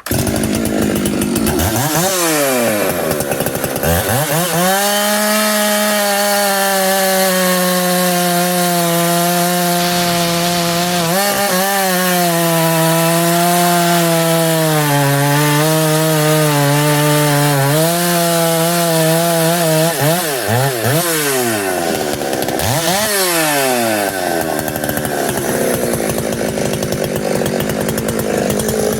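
Ported, muffler-modded Husqvarna 365 XTorq two-stroke chainsaw, opened up to a 372, noodling knotty hardwood. It revs up twice in the first few seconds, then holds high revs under cutting load for about fifteen seconds, the pitch sagging a little as the chain bites. Near the end it drops and picks up revs a few times.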